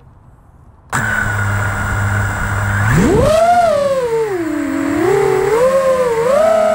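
FPV quadcopter's four brushless motors (T-Motor Pacer V3 2207 1750KV on 6S, Gemfan 5136 props) start spinning at a steady idle about a second in once the quad is armed. About three seconds in the throttle comes up for takeoff: the motor whine rises sharply and then glides up and down in pitch with the throttle.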